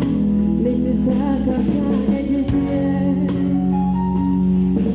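Music: a voice singing long held, wavering notes over a steady instrumental backing.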